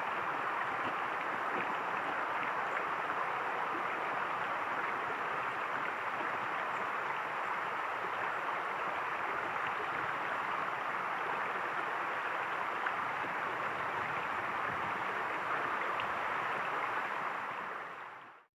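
Steady rushing of a flowing stream, fading out near the end.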